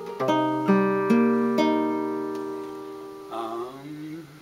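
Guitar played chord-melody style: four chords plucked one after another over the first second and a half, then left ringing and slowly fading. A short wavering of notes comes in about three and a half seconds in.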